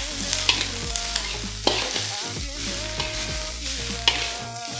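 Metal spatula scraping and knocking against a stainless steel wok while sliced vegetables sizzle as they are stir-fried, with a few sharper clanks.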